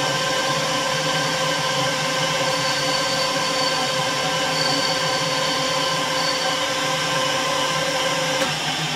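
Metal lathe running steadily, its spinning chuck and drive giving a whine of several held tones. About eight seconds in there is a click, part of the whine stops, and the lathe begins to wind down.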